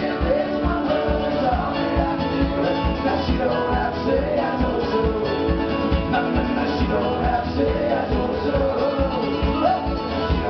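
Acoustic string band of guitars and mandolin playing a bluegrass song live, with a voice singing over a steady strummed beat.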